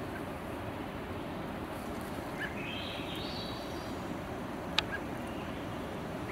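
Steady outdoor background hiss in a grassy meadow, with a short warbling bird call about two and a half seconds in and a single sharp click near five seconds.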